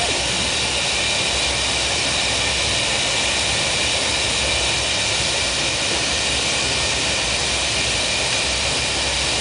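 Glass furnace running with a steady rushing roar and a low rumble beneath, even in level throughout.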